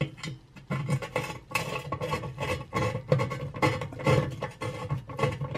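Metal fan cover being fitted against the back wall of a fan oven's cavity: a run of irregular clicks, scrapes and knocks of metal on metal.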